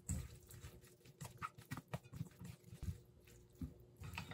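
Wooden chopsticks tossing a dressed salad in a stainless steel bowl: faint, irregular clicks and taps of the chopsticks against the bowl.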